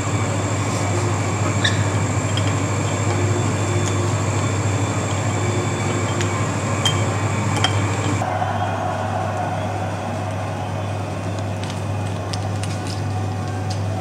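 Steady low hum of room noise, with a few faint sharp clicks as a blue-and-gold macaw works its beak on the cap of a glass beer bottle. A faint high whine in the background cuts off about eight seconds in.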